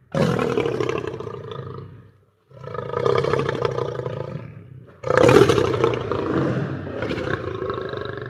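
Lion roaring: three long roars, each swelling and then fading away, the third starting sharply about five seconds in.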